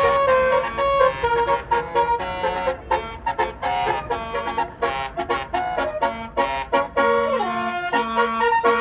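Basuri telolet bus horn playing a melody: several pitched horn notes sounding together and stepping up and down, with quick short notes in the middle.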